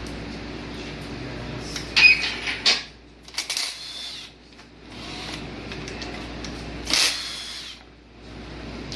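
A handheld power tool running in short bursts: a loud run with a thin whine about two seconds in, a few brief pulls around three and a half seconds, and another loud burst about seven seconds in, over a steady shop hum.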